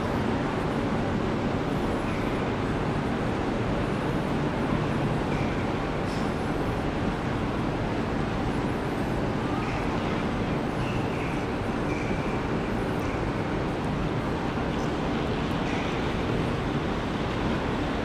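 Steady rumbling ambience of a railway station platform under a glass roof, with faint distant voices here and there.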